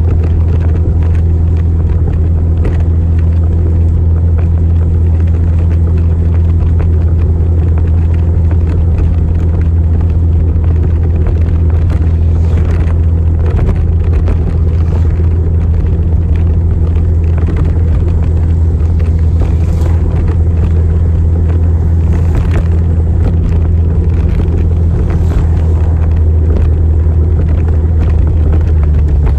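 Motorcycle running at a steady speed while being ridden, heard as a loud, even low rumble with a steady engine drone.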